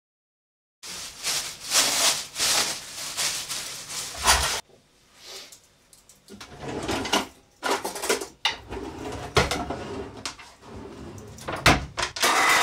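Kitchen counter clatter from making a sandwich: a knife, dishes and packaging knocking and scraping on a wooden cutting board in a run of separate clicks and knocks. It begins about a second in, after silence, and goes quieter for a moment near the middle.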